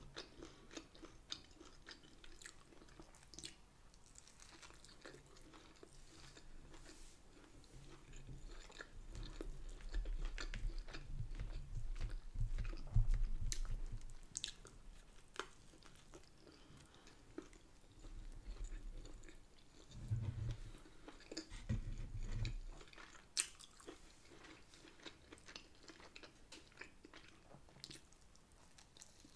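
Close-miked chewing and biting of a bacon and scrambled-egg bagel: small wet mouth clicks and soft crunches throughout, with two louder, low, muffled stretches in the middle.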